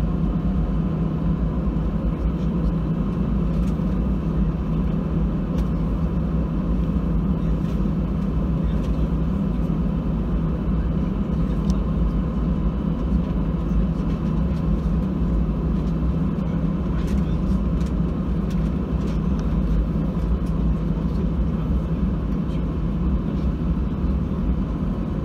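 Cabin noise of an Airbus A319 taxiing, heard from inside at a window seat by the wing: the steady drone of its CFM56 engines at taxi power with a thin steady whine above it, and a few faint clicks.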